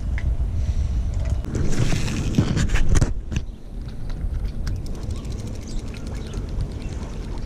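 Wind rumbling on the microphone, with a few knocks in the first half. From about halfway a spinning reel is being wound in, a rapid run of fine clicks.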